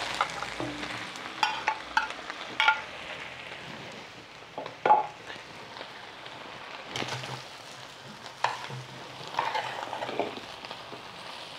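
Beef strips sizzling in a pan as chopped vegetables are tipped in and pushed around with a spatula: a steady sizzle with scattered clicks and scrapes.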